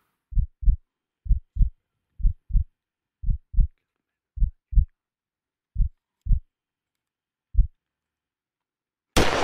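Heartbeat sound effect: low double thumps about once a second, the gap slowly widening, ending on a single beat, over an otherwise muted track. Just before the end, a hunting rifle shot cracks and then fades away.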